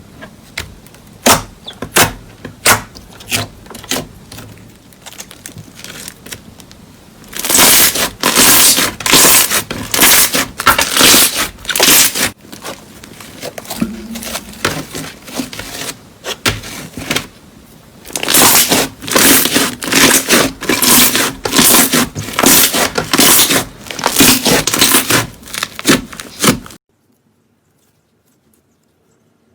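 Slime being squeezed and pressed by hand, making sharp pops and crackles: scattered single pops at first, then two long stretches of dense crackling that stop abruptly a few seconds before the end.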